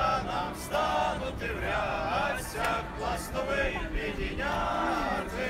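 A group of scouts singing their anthem together, with long held sung notes.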